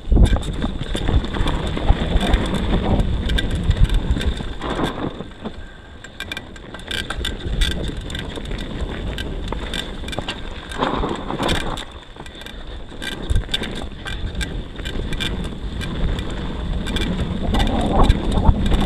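YT Tues downhill mountain bike rolling fast down a gravel and dirt trail: tyres crunching over the surface, with frequent rattles and knocks from the bike, and wind on the microphone. The sound is a little quieter for a couple of seconds a few seconds in.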